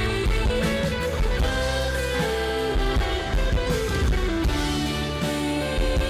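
Rock band playing live, an instrumental passage led by guitar over steady bass and drums.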